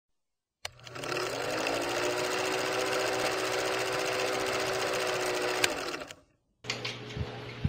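Film projector running sound effect: a steady mechanical whirr that spins up about half a second in and cuts off a little after six seconds in. Near the end, running tap water and clattering begin.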